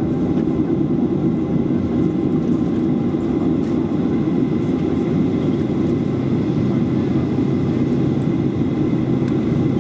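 Steady low drone heard inside the cabin of a Boeing 737-400 standing on the ground, its CFM56-3 engines idling, with a faint steady whine above the drone.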